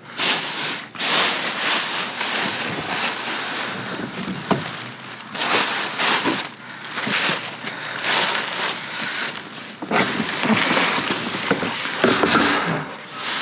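Rummaging through dumpster trash: plastic bags and debris rustling and crinkling in repeated surges, with a few sharp knocks.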